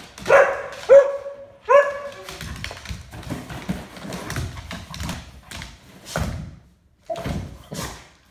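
A dog gives three short, excited barks in the first two seconds, then its paws thump and scrabble against a cardboard box and a wooden floor as it jumps at the box.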